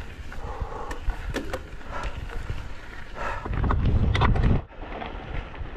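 A mountain biker's heavy breathing on a long climb, mixed with wind rumbling on the microphone and a few light clicks. A louder rush comes about three and a half seconds in, lasting about a second.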